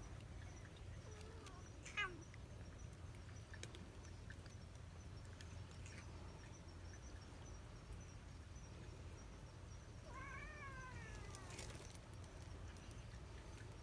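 Stray cats meowing: a short, sharp falling cry about two seconds in, the loudest sound, and a longer meow that rises and falls about ten seconds in.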